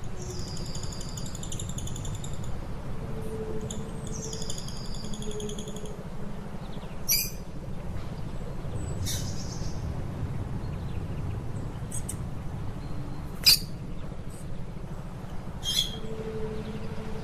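Lovebird calling: two trilled phrases of a couple of seconds each, then five sharp single chirps spaced a second or two apart, the loudest about two-thirds of the way through. A steady low hum runs underneath.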